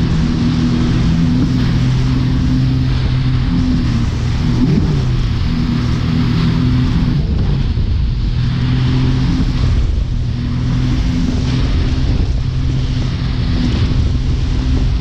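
A speedboat's engine runs steadily at towing speed, its pitch briefly rising and falling about four to five seconds in, over the hiss and splash of the churning wake and wind.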